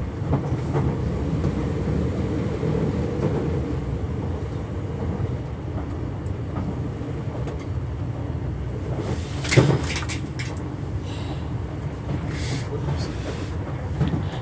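Interior running noise of a Class 395 electric multiple unit: a steady low rumble with a faint tone that fades after about four seconds. One sharp knock comes about nine and a half seconds in.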